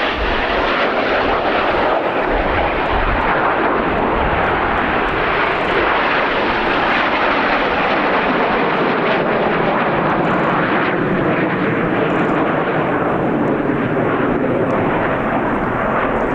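Loud, steady jet noise from Aermacchi MB-339 jet trainers flying past, their Rolls-Royce Viper turbojets making a dense whooshing noise that slowly swirls up and down in pitch.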